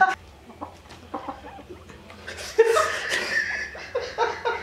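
Men laughing and chuckling, faint at first and louder from about two and a half seconds in.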